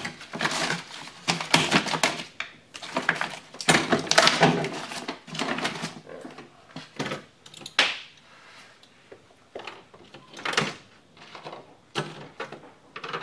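Plastic vapor-barrier sheet from a car door being pulled and crumpled by hand: irregular crinkling and rustling, busiest in the first half, then thinning to a few separate knocks and clicks.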